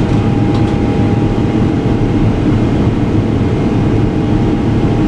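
Steady cabin noise inside a Boeing 777 airliner: engine and airflow noise with a low rumble and a faint steady hum, and one light tick about half a second in.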